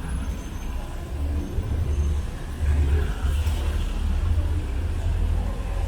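Street traffic: motor vehicles passing on a city street, a low rumble throughout with a car's hiss swelling about three seconds in.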